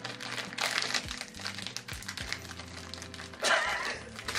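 Crinkling of small plastic snack wrappers being opened by hand, in a run of quick crackles with a louder crinkle about three and a half seconds in, over background music.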